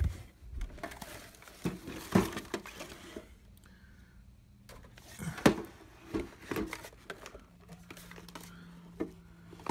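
Handling noise: rustling and crinkling with a scatter of sharp knocks and clicks as objects are moved about. A faint steady low hum comes in near the end.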